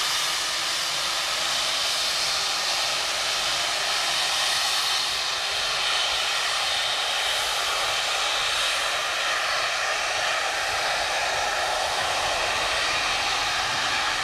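Heisler geared steam locomotive's safety valve stuck open, blowing off steam in one continuous, steady hiss: the boiler is losing pressure.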